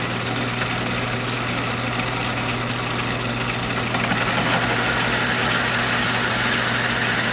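Atlas metal lathe running under power and turning a metal bar: a steady motor and drive hum with cutting noise that grows louder about four seconds in. The tool is throwing a long stringy chip that it is not breaking.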